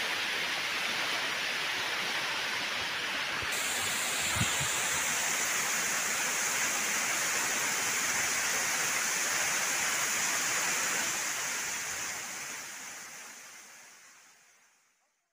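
Waterfall: a steady rush of falling water and spray, fading out over the last few seconds.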